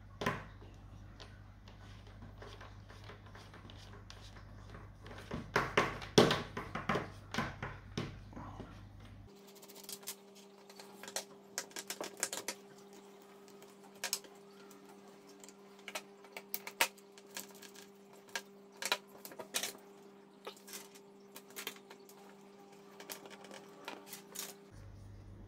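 Hands screwing the plastic nuts of a nut-lock tee connector onto black LDPE irrigation pipe: scattered clicks, taps and rubbing of hard plastic on plastic and pipe, busiest about six seconds in.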